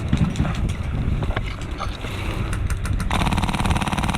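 Airsoft gunfire from a Polar Star Fusion Engine Mk46: scattered single shots, then a long, rapid full-auto burst starting about three seconds in.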